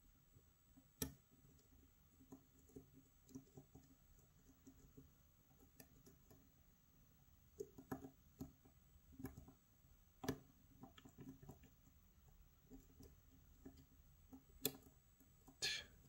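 Faint, irregular metallic clicks and ticks of a hook pick and tension tool working the pins inside a pin-tumbler lock cylinder, with a few sharper clicks scattered through.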